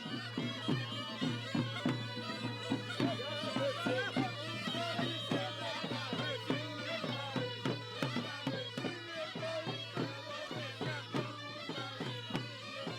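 Sampouna, the Mykonos bagpipe of goat skin with double reed pipes, playing a lively folk tune over a steady beat of about three strokes a second.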